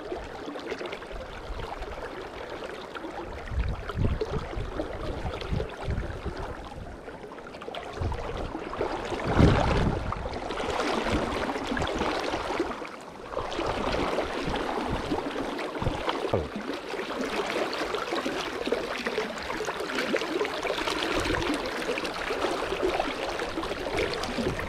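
River water rushing steadily around a wading angler, with a few dull low thumps, the loudest about nine and a half seconds in.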